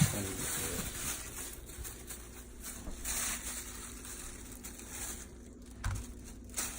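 Chicken pieces being coated in flour by hand: soft, irregular crinkling and patting, with a faint steady hum behind it and a dull knock about six seconds in.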